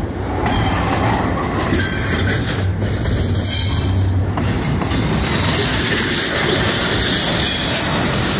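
Freight train cars rolling past close by, steel wheels on the rails making a steady, loud noise.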